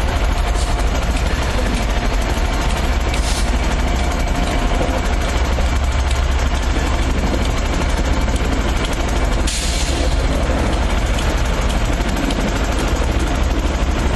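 Class 91 electric locomotive and its coaches: a steady, loud rumble with strong low-end noise. There are two short hisses, about three seconds and nine and a half seconds in.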